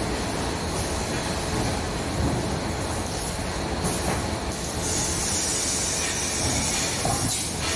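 Motor-driven edge-rolling machine turning a large 4 mm sheet-iron cylinder between its rollers to flare the rim: a steady mechanical rumble with the metallic hiss and squeal of the steel rim under the rollers. The high hiss grows stronger after about five seconds.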